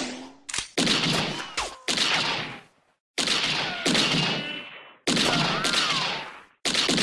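Gunshot sound effects: a string of about six or seven single shots, each a sharp crack with a short fading tail, separated by brief silences. A thin whistling tone sliding in pitch trails after some of the shots.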